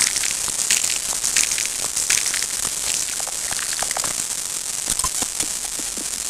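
Steady crackling: dense, irregular clicks over a high hiss, with no beat or tune.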